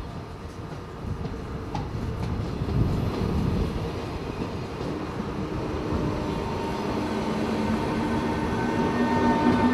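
Passenger train running past close by, with a steady rumble of wheels on rails. In the second half a steady whine builds as the train slows.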